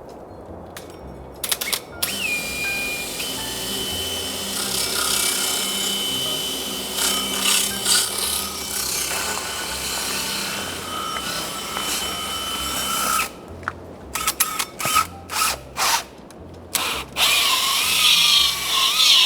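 Power drill boring a hole through a house's siding and plywood sheathing, running steadily for several seconds with a whine. Around two-thirds of the way in it switches to short on-off bursts of the trigger.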